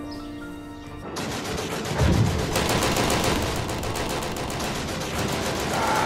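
Background music, then from about a second in a battle sound effect: a heavy low rumble swells about two seconds in, and rapid machine-gun fire runs on from about two and a half seconds in, with the music continuing underneath.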